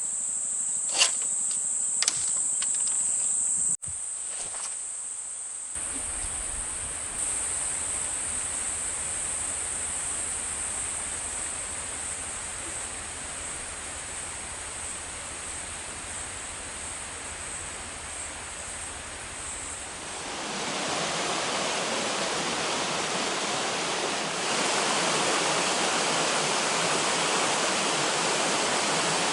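Insects chirring steadily in a high, even band, with a few sharp knocks in the first seconds. About twenty seconds in, a steady rushing noise rises and covers them, growing louder again a few seconds later.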